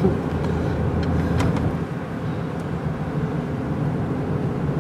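Steady engine and tyre noise of a car driving along a road, heard from inside the cabin.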